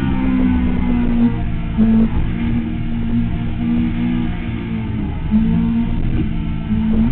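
Motorcycle engine heard on board, held at fairly steady revs through a corner, its pitch stepping slightly up and down with small throttle changes.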